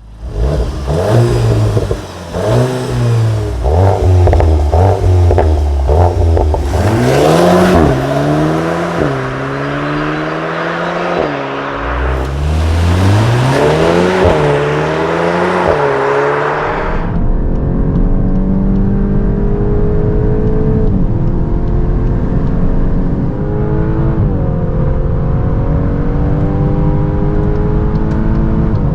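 Volkswagen Golf 2.0-litre turbocharged four-cylinder engine revved hard several times, the pitch climbing and falling sharply. About halfway it gives way to a sustained full-throttle acceleration, the pitch rising steadily and dropping back twice at upshifts.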